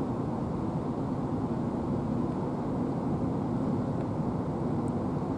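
Steady low rumble of an Airbus A380 airliner's four jet engines passing high overhead, heard from far below as an even, unchanging drone.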